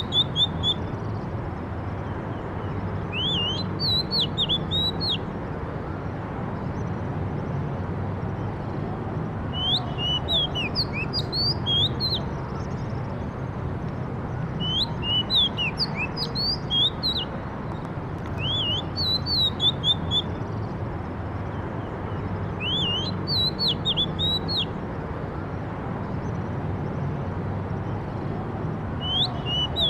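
Songbird singing in short phrases of quick high chirps and whistled slurs, repeated every few seconds, over a steady low rumble.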